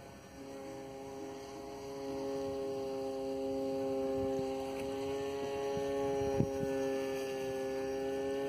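Motor and propeller of a 98 cm Zagi flying-wing RC plane in flight, a steady droning hum that grows louder about two seconds in. A single brief click comes a little past six seconds.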